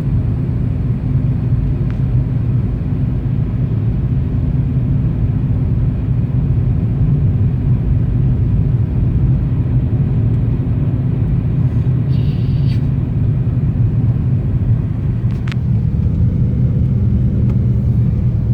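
Steady low rumble of a car driving at road speed, heard from inside the cabin. There is a brief higher-pitched sound about twelve seconds in and a sharp click a few seconds later.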